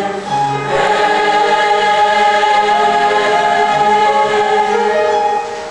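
School choir, mostly girls' voices, singing held chords that shift every second or so, getting a little quieter near the end.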